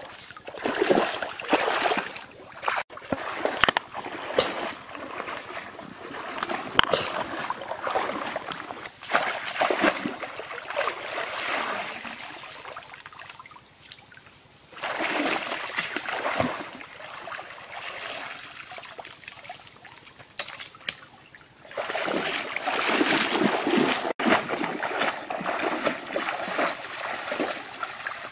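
Shallow stream water splashing and sloshing in irregular bouts, with quieter trickling between them: water being stirred and churned in the river.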